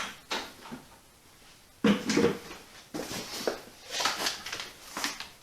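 Accessories and packaging being handled while unboxing a lathe: a series of knocks, clunks and rustles, the loudest about two seconds in.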